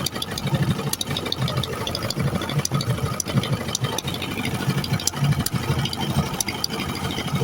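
Boat engine running steadily with a pulsing low hum, and a rattle of small clicks throughout.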